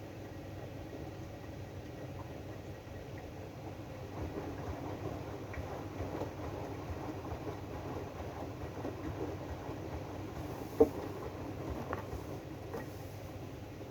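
AEG DualSense washing machine running its drum-clean cycle: the turning drum gives a steady rumble with irregular knocks, and one sharp click about eleven seconds in.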